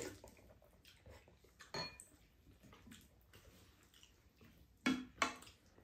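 Spoons and chopsticks clinking and tapping against ceramic bowls and a pan during a meal: a few scattered clicks, the two loudest close together near the end.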